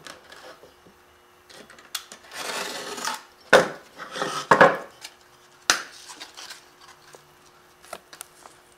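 A small piece of drywall being worked by hand: a short scraping stretch, then three sharp knocks or cracks about a second apart.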